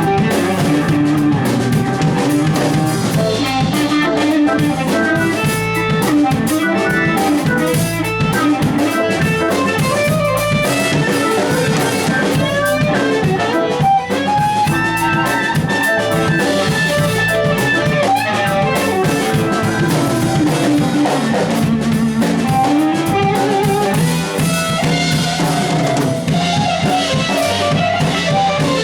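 A band playing: drum kit and guitar, loud and continuous.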